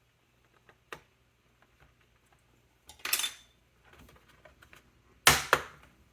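Hard plastic and metal laptop parts being handled while the back cover is taken off: a light click, a short rattling scrape about three seconds in, then two sharp knocks a little after five seconds.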